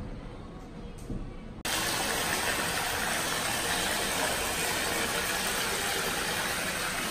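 Waterfall-style bath spout pouring a wide sheet of water into an empty bathtub: a steady rush of falling water that starts abruptly about a second and a half in.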